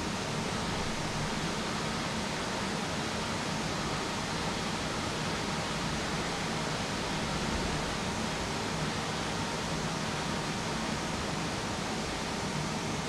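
Steady, even hiss that does not change, with no distinct events in it.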